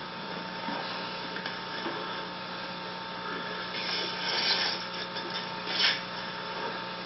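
Steady electrical hum with a few brief rustling noises, the two loudest about four seconds in and just before six seconds in.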